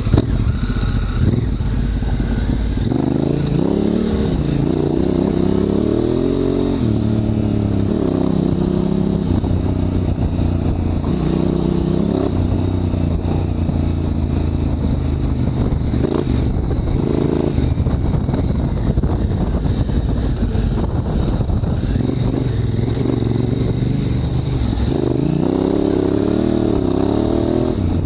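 Honda Africa Twin CRF1000L's parallel-twin engine being ridden. The note rises and falls again and again as the throttle is opened and closed, with a run of climbs about three to seven seconds in and again near the end.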